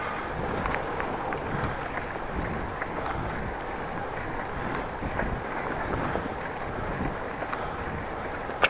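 Steady wind rush on an action camera's microphone and tyre noise from a bicycle being ridden, with a sharp click near the end.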